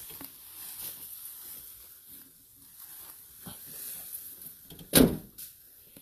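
Faint rustling and scattered small knocks from a bundle of cut grass being handled, then a single loud thump about five seconds in.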